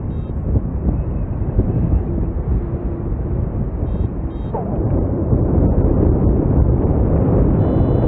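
Airflow rushing and buffeting over the camera microphone during a paraglider flight, a steady low rumble that grows a little stronger about halfway through. A few short, faint high beeps sound over it: two about four seconds in and a longer one near the end.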